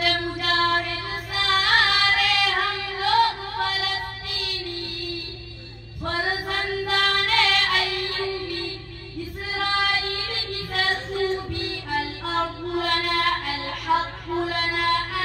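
A boy's voice singing a nasheed over a public-address system, in long wavering held notes with short breaks between phrases, over a steady low hum.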